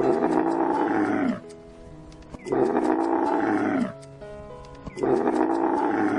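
A large animal's loud, harsh call, given three times, each about a second and a half long and about two and a half seconds apart, with soft background music between the calls.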